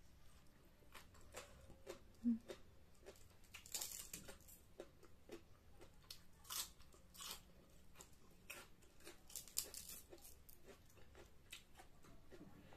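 Close-up crunching and chewing of raw cabbage, in irregular crisp bites with clusters of louder crunches. A single short knock sounds about two seconds in.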